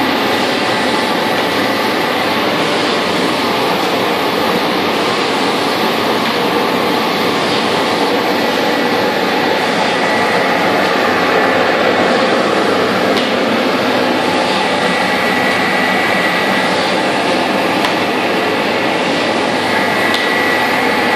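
Roland Favorit RFOB coating machine and its UV drying tunnel running together: a steady mechanical whir from the press and the dryer's cooling fans, with a thin steady high whine.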